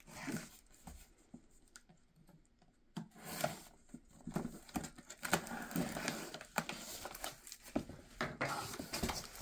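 A cardboard shipping box being opened: packing tape cut and torn, then the cardboard flaps pulled back, with a run of scraping, rustling and clicks starting about three seconds in.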